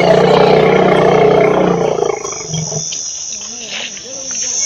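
A young Asian elephant gives a loud, harsh roaring call lasting about two seconds. A steady high-pitched buzz sets in about halfway through.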